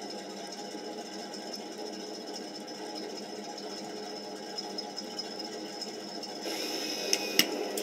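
1/16-scale RC T-34-85 tank's speaker sound unit playing a steady engine idle, with two sharp clicks about seven seconds in.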